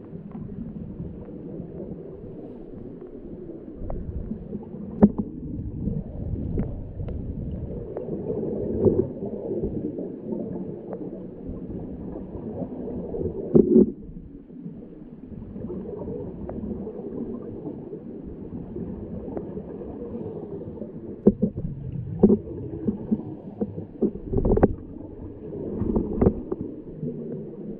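Scuba divers' regulator breathing and exhaled bubbles heard underwater, a muffled, dull gurgling rumble with scattered short knocks. Louder bubbling swells come about halfway through and again near the end.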